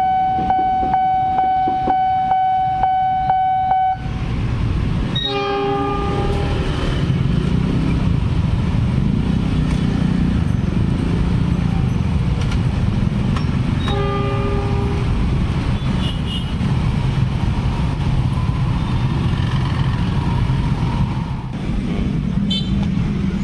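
Railway level-crossing warning alarm sounding a steady pulsing tone, which stops about four seconds in as the crossing clears. Then dense road traffic, mostly motorcycle engines, moves off across the tracks, with two short horn toots about six and fourteen seconds in.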